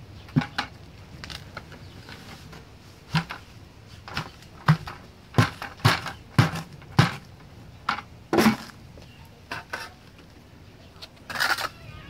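A plastic bucket is knocked and banged about nine times in a few seconds to shake out wet cement mix. Near the end a trowel scrapes through the mix.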